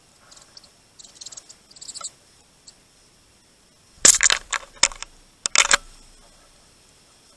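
Birds at a feeder: sharp taps and knocks in two quick clusters, about four seconds in and again about five and a half seconds in, typical of pecking at seed on the feeder. Fainter high-pitched sounds come earlier.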